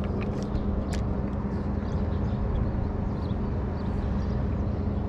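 Steady low hum of a boat's electric trolling motor running, over a low rumble of wind on the microphone, with a few faint ticks.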